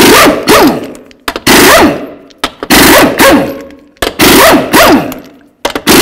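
Half-inch impact wrench spinning lug nuts off a wheel hub: five short hammering bursts about a second and a half apart, each followed by a falling whine as the tool spins down.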